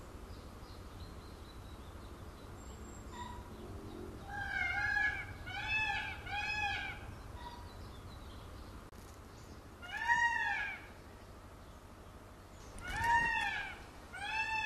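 Indian peafowl calling: six loud, drawn-out calls, each rising then falling in pitch, three in quick succession and then three more spaced a few seconds apart.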